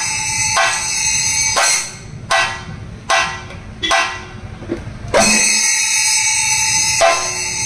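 Thayambaka ensemble: chenda drums played under steadily ringing ilathalam cymbals. About two seconds in the dense playing thins to a few separate sharp strokes, and the full ensemble comes back in about five seconds in.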